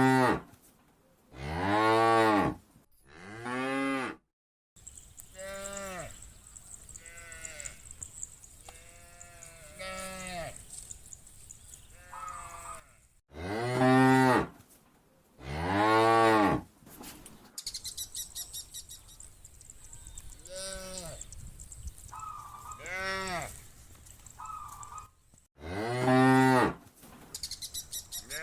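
Cows mooing over and over: long, loud moos that rise and fall in pitch, often two in quick succession, with quieter, more distant moos in between. A faint high chittering sounds in the background at times.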